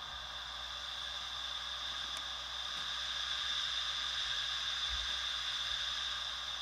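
Noise Toaster analog synthesizer playing filtered white noise through a small bare speaker: a steady hiss with a strong high ring at one pitch from the resonant low-pass filter. It grows louder through the middle and eases a little near the end as the filter knobs are turned.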